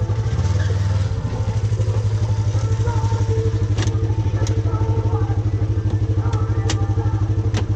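An engine idling steadily close by, with an even fast pulse and a strong low hum. A few sharp clicks and knocks come through over it, around the middle and near the end.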